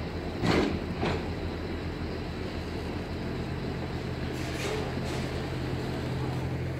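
MV Ali Cat catamaran ferry's engines running with a steady low drone as the vessel comes alongside the pier. Two loud knocks about half a second apart near the start, and a fainter one a little after the middle.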